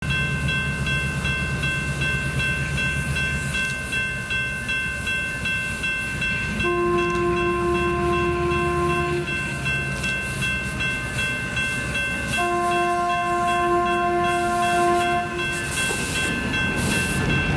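Diesel switcher locomotive working at low speed as it pulls a loaded train of bottle cars, its engine rumbling steadily under a continuous high squeal. The locomotive's horn sounds two long blasts, about seven and twelve seconds in.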